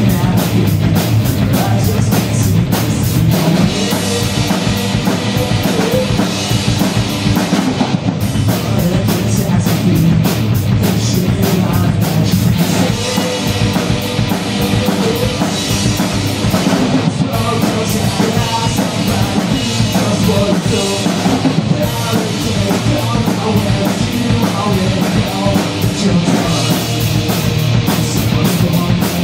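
Live punk rock band playing: electric guitar and a drum kit driving a steady beat.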